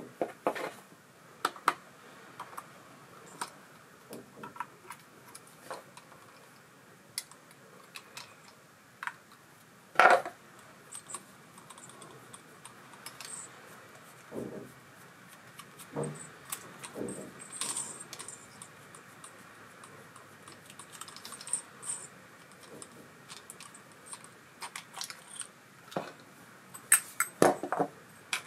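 Scattered metallic clicks and clinks as an ABU Ambassadeur 4600 CA baitcasting reel and small tools are handled on a workbench. There is one sharper knock about ten seconds in and a quick run of clicks near the end.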